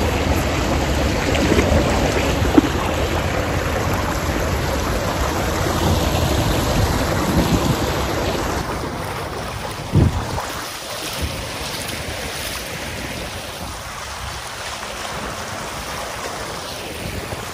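Rushing water and wake from an inflatable kayak running at speed under an electric outboard, with wind on the microphone. A single knock comes about ten seconds in, and the rush is quieter in the second half.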